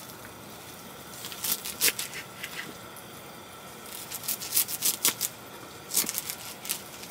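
Bunch of fresh garlic chives being handled, rustling and crackling as the stems are gathered, laid down and pressed onto a wooden cutting board. The sound comes in three short clusters of sharp rustles and taps: about a second in, around four seconds in, and around six seconds in.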